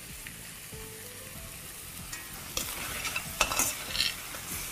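Prawns in a coconut-cream sauce sizzling in a hot pan. About halfway through, a utensil starts scraping and knocking against the pan as the dish is stirred.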